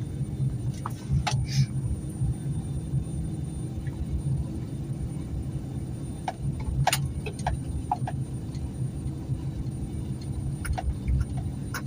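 Steady low rumble of a vehicle driving, heard from inside, with scattered light clicks and rattles.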